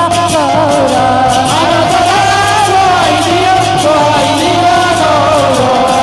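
Live Odia devotional kirtan music: a woman singing a Jagannath bhajan over a steady held note, with a drum and hand cymbals keeping time.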